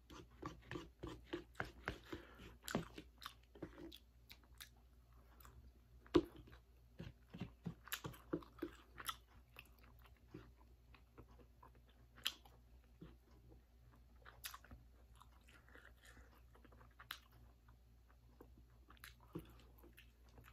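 Close-up mouth sounds of a person chewing spicy Korean noodles, with wet clicks and smacks. The chewing comes quickly, two or three a second, for the first few seconds, then thins out to scattered smacks.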